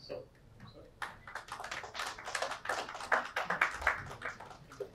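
Audience applauding: a patter of many hand claps that starts about a second in and dies away near the end.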